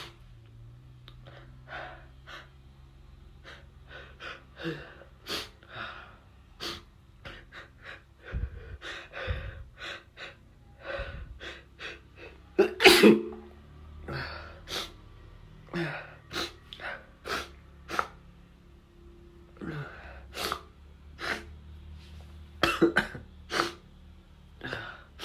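A person sneezing over and over: a long run of short, sharp sneezes about one a second, with the loudest, fullest sneeze about halfway through.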